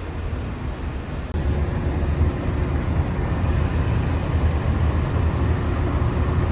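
Monorail car running between stations, heard from inside the cabin: a steady low rumble that grows louder about a second and a half in, joined by a faint steady motor hum.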